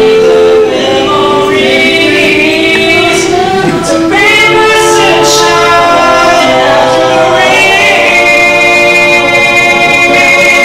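A cappella vocal group singing in close harmony: a male lead voice over sustained backing chords from the other singers, with no instruments. From about eight seconds in, the group holds a long chord.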